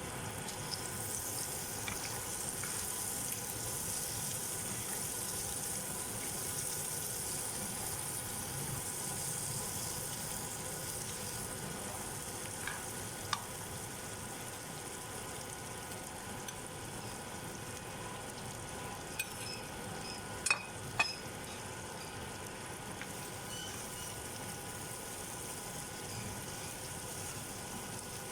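Food frying and sizzling steadily in a hot pan, with a few sharp clicks partway through, two of them close together about three-quarters of the way in.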